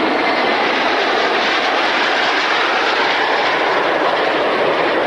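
Turbojet engines of a formation of PZL TS-11 Iskra jet trainers flying overhead: a steady rushing jet noise with no breaks.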